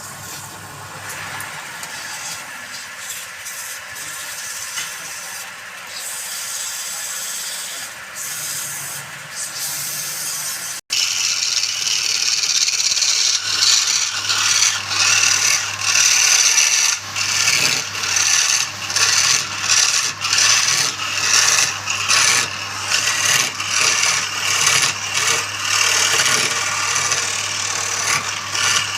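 Wood lathe running with a steady motor hum while a tool or abrasive rubs against the spinning palm wood with a rasping sound. It breaks off for an instant about eleven seconds in, then comes back louder, swelling and fading about once a second.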